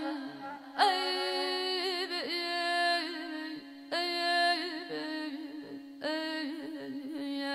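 A woman singing Azerbaijani mugham without words: long held notes bent into quick trills and wavers, in three phrases starting about one, four and six seconds in.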